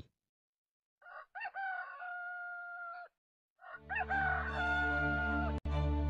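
A rooster crowing twice, each crow rising at the start and then held on one long note. Soft music comes in under the second crow.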